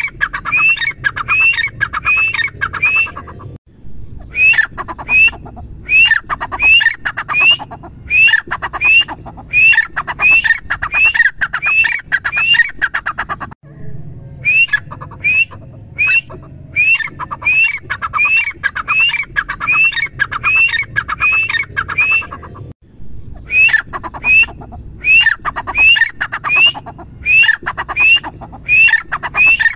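Grey francolin calling: loud, rapidly repeated shrill notes, each rising in pitch, about two a second. The notes come in four long runs broken by three short pauses.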